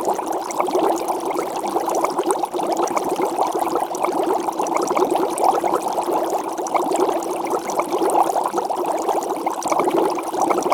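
Water at a rolling boil, a steady dense bubbling of many small pops.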